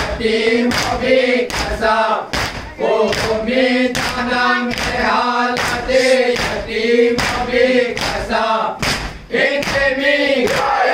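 Men chanting a noha together, with chest-beating (matam) thumps of hands on chests in a steady beat, about one every two-thirds of a second.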